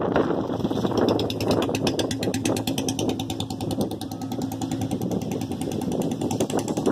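A small engine running steadily, with a fast even ticking and a low hum.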